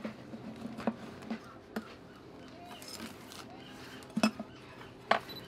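Candy scooped from clear plastic bulk bins into a plastic bag: soft rustling with a handful of short, sharp clicks.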